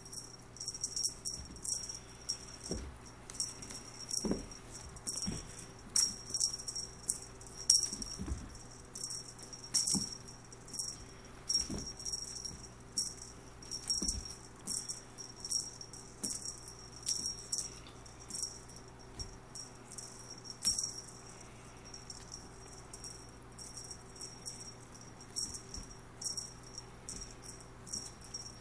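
A small bell jingling in quick, irregular shakes again and again while kittens play, with a few soft thumps.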